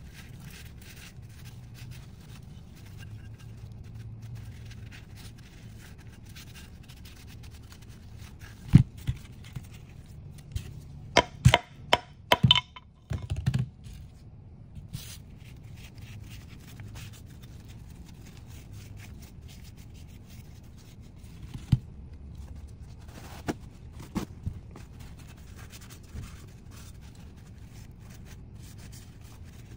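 A shop towel rubbing and wiping over a metal gearbox case half, with a few sharp knocks as the case halves are handled and set down on a wooden bench; the knocks cluster a little before halfway.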